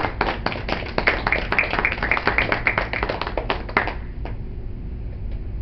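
Small audience applauding with distinct hand claps, which die away about four seconds in.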